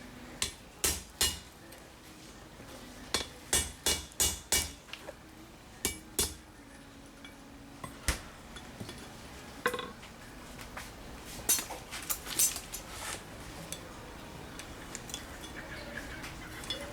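A hammer striking metal in short, irregular runs of taps: a quick group of five in the middle, with single strikes and pauses between.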